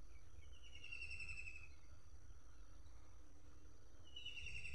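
A bird's short trilled call, heard twice about four seconds apart, over a faint low steady rumble.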